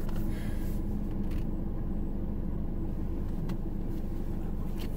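Steady road and engine noise of a car heard from inside its cabin while driving: a low, even rumble with a few faint ticks.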